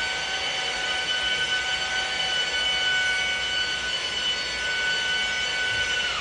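Electric rotary buffer running steadily on glass, polishing out a scratch: a constant high whine over a grinding hiss.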